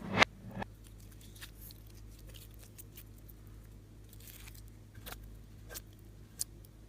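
Slime being handled: a sharp sticky pop about a quarter second in, then scattered soft clicks and crackles.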